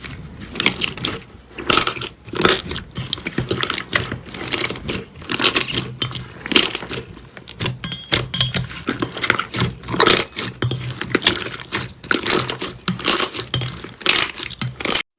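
Slime being squeezed and pressed by hand, giving a dense, irregular run of crackling, popping clicks that cuts off suddenly near the end.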